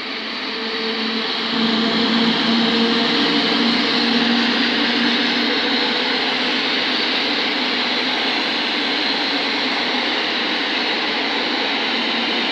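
Passenger train hauled by an EU07 electric locomotive passing close by at speed. The locomotive's steady hum is heard as it goes by in the first few seconds, then the steady rolling noise of the coaches' wheels on the rails.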